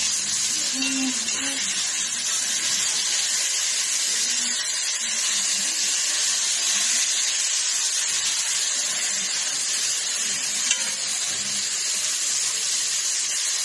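Steady sizzling hiss of food frying in hot oil.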